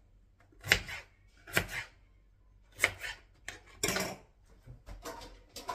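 Kitchen knife chopping a peeled white radish on a plastic cutting board: four sharp chops roughly a second apart, then a few lighter knocks near the end.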